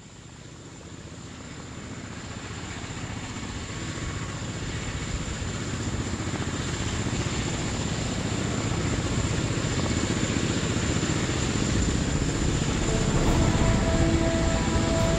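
Helicopter running, its rotor and turbine noise fading in and growing steadily louder, with a high steady whine over a fast low beat.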